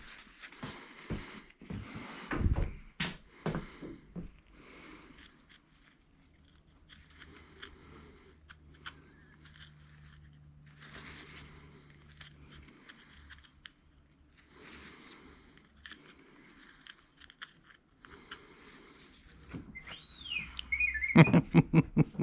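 Scattered clicks, knocks and scraping of hand work on an ATV, loudest a few seconds in. Near the end comes a short whistle-like tone that rises and falls, then a quick run of loud pitched pulses.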